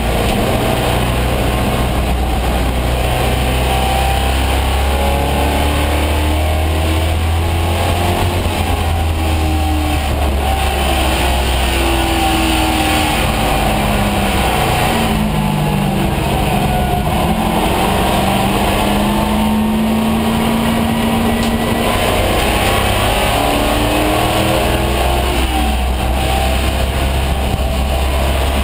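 1974 AMC Javelin AMX race car's V8 engine under racing load, heard from inside the stripped cabin, its revs climbing and dropping again and again as it is driven hard around the track.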